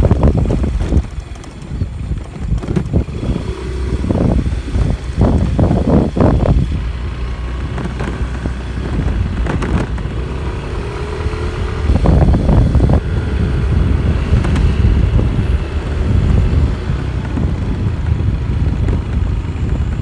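Wind buffeting the microphone on a moving motorcycle, in irregular gusts, over the motorcycle's engine running at riding speed.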